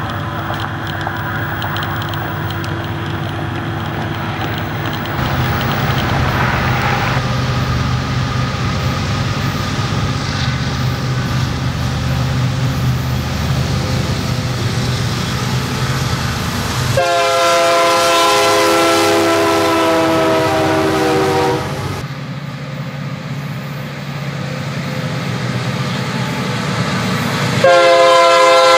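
Diesel freight locomotives rumbling steadily, then a long multi-note air horn blast of about five seconds from the leading Union Pacific SD70M partway through, and another horn blast starting near the end.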